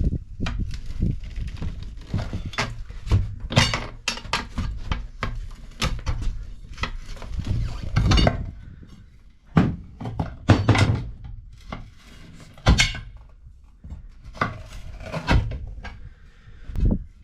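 Irregular clanks, knocks and thuds of hand tools and metal parts being worked on a tractor wheel and tire, with several heavier thumps spread through.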